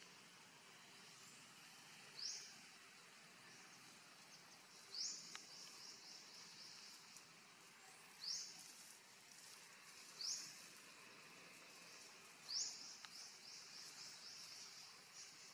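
Faint outdoor background with a high chirping call repeated five times, every two to three seconds; each call starts with one sharp note and trails off into quicker, fainter chirps.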